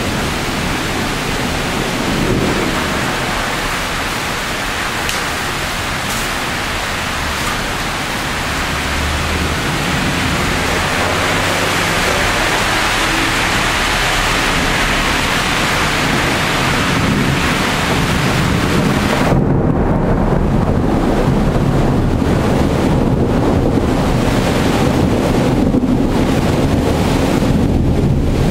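Heavy thunderstorm rain, a dense steady hiss, with low thunder rumbling beneath it. About two-thirds of the way in the high hiss thins suddenly and a deeper, uneven rushing takes over.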